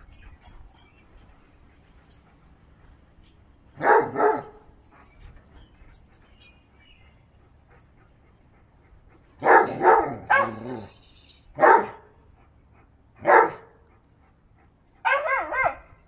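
Vizsla puppy barking and yipping in play, in short separate bursts: a pair about four seconds in, a quick run of barks around ten seconds, single barks a little later, and a wavering yelp near the end.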